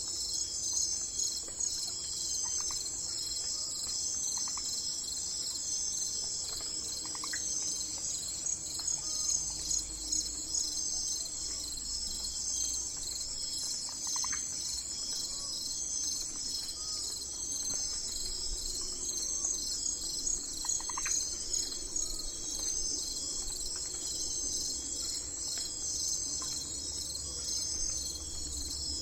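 A steady chorus of insects trilling in a shrill, pulsing wall of sound. A few faint short chirps come through now and then.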